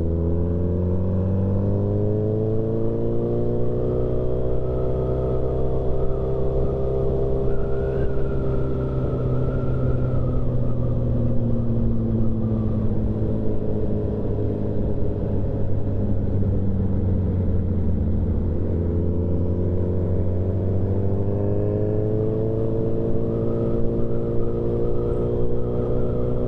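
Motorcycle engine running under way, its note climbing over the first few seconds, easing lower through the middle, and climbing again about two-thirds of the way in as speed changes.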